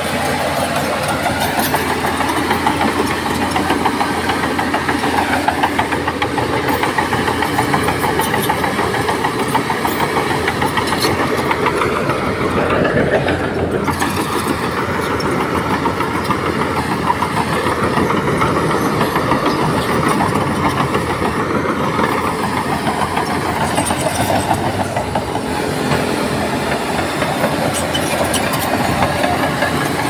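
Heavy diesel earthmoving machinery running steadily, its engine note shifting about halfway through.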